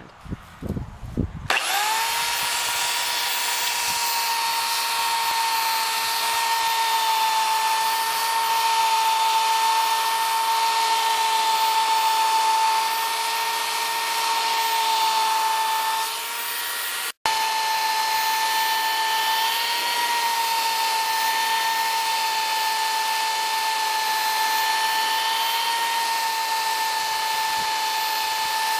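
Electric belt sander switched on about a second and a half in, then running with a steady whine as it sands Flex-Tec HV epoxy filler on a wooden window sash; the sound cuts out for an instant just past the middle.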